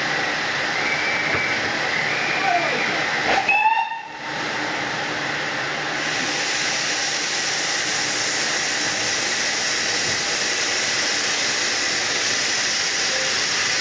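Steady hiss of escaping steam from the ex-LBSCR E4 class 0-6-2 tank engine B473 standing at the platform. It dips briefly about four seconds in, then runs on a little harsher.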